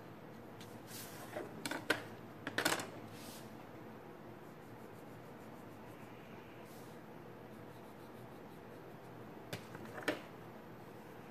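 A wooden ruler and pencil handled on paper: a few sharp clicks and light knocks about two seconds in as the ruler is shifted and set down, and two more near the end as it is picked up, over a faint steady hiss and soft pencil strokes.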